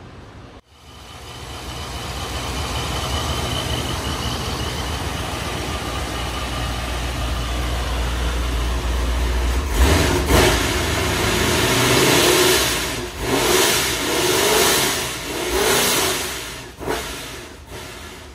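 ProCharger-supercharged 392 HEMI V8 of a 2017 Dodge Charger running at idle, then revved in a series of quick blips from about ten seconds in.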